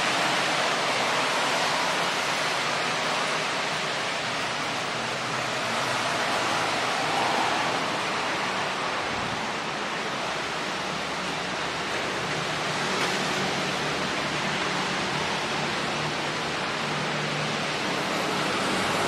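Steady, even wash of indoor arcade noise from the claw machines, coin changer and ventilation, with no single sound standing out.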